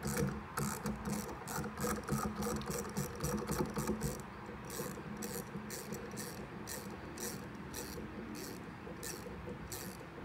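Ratchet wrench clicking as nuts are tightened on a turbocharger's wastegate actuator bracket. Quick, uneven runs of clicks at first, then slower, steadier strokes at about two clicks a second.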